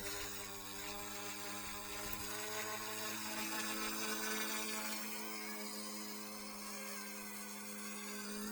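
Eachine 180 direct-drive RC helicopter's electric motors running with a steady buzzing whine, the pitch sagging a little past the middle and rising again near the end.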